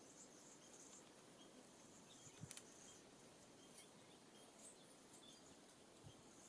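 Near silence: faint outdoor ambience with a thin high hiss and a brief cluster of faint clicks about two and a half seconds in.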